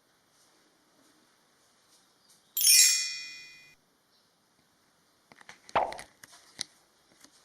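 A single bright metallic ding that rings out and fades over about a second, followed a few seconds later by a quick cluster of light knocks and clicks.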